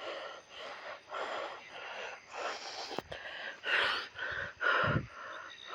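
A person breathing in and out close to the microphone in a string of uneven puffs, with a single sharp click about three seconds in.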